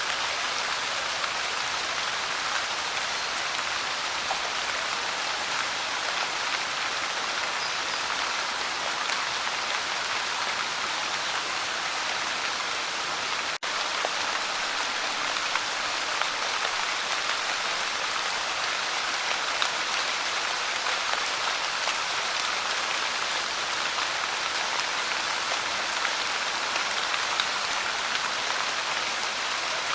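Light rain falling, a steady even patter of raindrops, with a split-second drop in level about halfway through.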